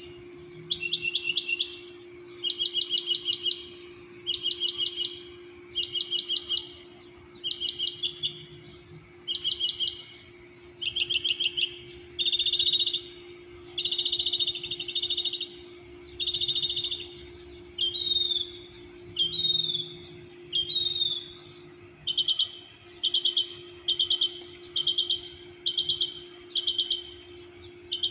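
A single songbird singing a long run of short phrases, each a quick series of notes, about one a second. It repeats each phrase a few times and then switches to a new one: trilled runs, then buzzier notes, then downward-slurred whistles, then short quick phrases at a faster pace. A steady hum runs underneath.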